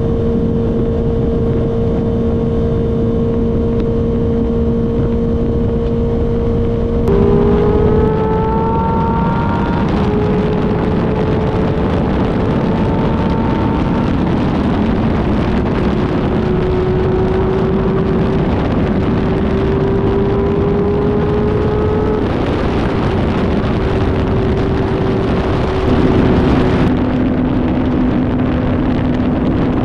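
Kawasaki ZX6R inline-four engine heard from the rider's seat: it cruises with a steady note, then about seven seconds in pulls harder with a rising note and a few upshifts where the pitch steps down. Wind noise grows later, and near the end the engine settles to a lower, steady note.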